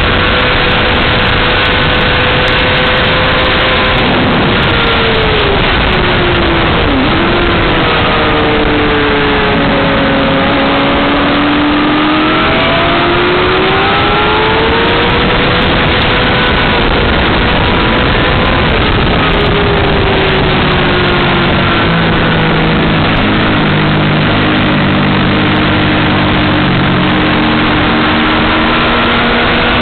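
Honda CBR600RR inline-four engine at track speed, its pitch rising and falling repeatedly as it revs up and comes off throttle, under a loud, steady rush of wind noise.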